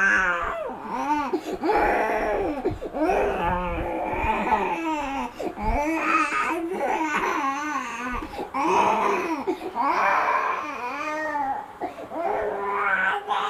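Toddler crying in long wavering wails, one after another with only brief breaks for breath.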